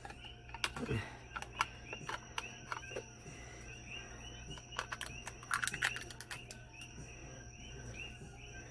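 Repeated animal chirping in the background, about three short chirps a second, with scattered light clicks and taps, most of them about five to six seconds in, from small craft items being handled.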